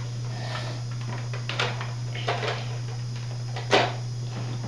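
Hard plastic clicks and knocks as parts of a Zuru X-Shot toy foam-dart blaster are handled and fitted together to turn it into a sniper setup: a few short sharp clicks, the loudest near the end, over a steady low hum.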